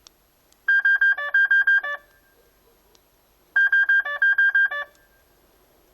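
Bulldog Security car alarm sounding its electronic tones: two quick runs of high beeps that step between a couple of pitches like a short melody, each about a second long, with a pause of about a second and a half between them.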